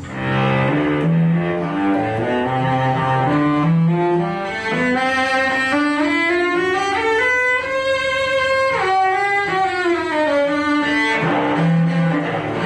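A carbon fibre cello played with the bow, one melody line of sustained notes with vibrato. It climbs from the low register to a high held note about halfway through, then comes back down.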